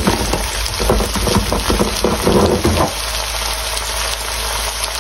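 Sliced luffa sizzling in a hot frying pan. For the first three seconds there are rattles and knocks as seasoning is handled and added, then a steadier sizzle.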